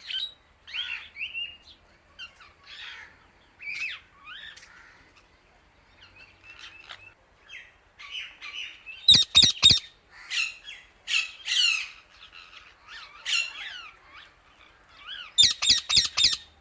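Indian ringneck parrot chirping and squawking in a run of short calls, with two louder bursts of rapid, harsh squawks about nine seconds in and near the end.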